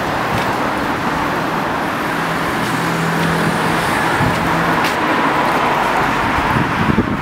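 Street traffic: cars passing on the road alongside, a steady wash of tyre noise with an engine hum for a couple of seconds in the middle.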